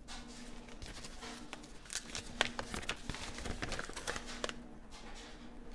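Paper instruction manual rustling and crinkling as it is handled and set down, with scattered light clicks and taps, dying away near the end.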